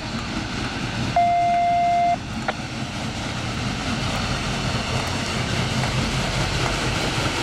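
Union Pacific Big Boy 4014, a 4-8-8-4 articulated steam locomotive, pulling away slowly with its train: a steady heavy rumble of exhaust and running gear. A single steady tone lasting about a second sounds about a second in.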